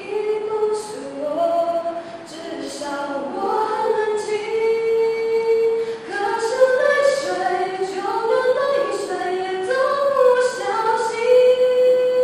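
A female voice singing a slow melody without accompaniment, holding a long note about halfway through and again near the end.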